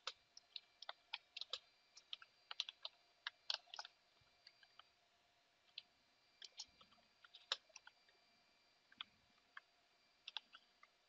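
Computer keyboard being typed on: quick, irregular key clicks, a fast run over the first few seconds, then scattered keystrokes with short pauses between them.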